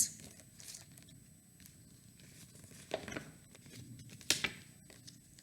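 Quiet room tone broken by a few short, faint clicks and rustles, the sharpest about three and four and a half seconds in.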